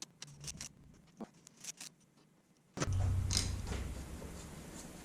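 Light clicks and small metal handling noises from work on a motorcycle's front brake caliper and bracket. About three seconds in, a sudden louder rumbling rustle starts close by and slowly fades.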